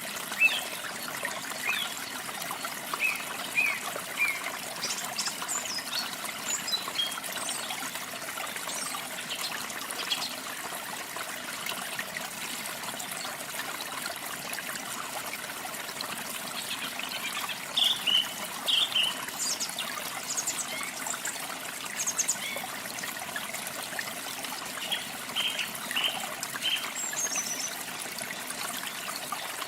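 Steady trickling, splashing water of a small waterfall, with songbirds chirping now and then in short high notes, several clusters of calls through the stretch.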